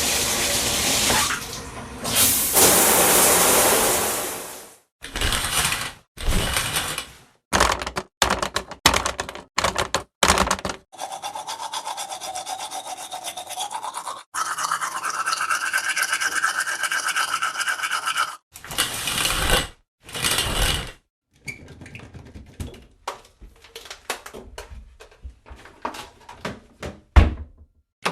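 A run of separate bathroom sound effects, one after another with short gaps: a few seconds of loud rushing noise, a string of brief bursts, a steady sound with a wavering tone in the middle, then faint scattered clicks.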